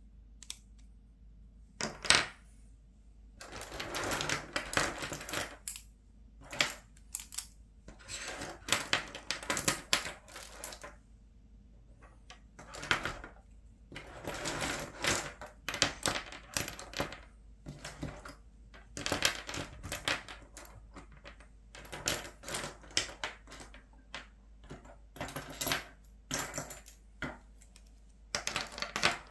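Plastic ballpoint pens clattering against each other and the tabletop as they are picked through and laid out in rows: repeated bursts of clicks and rattles.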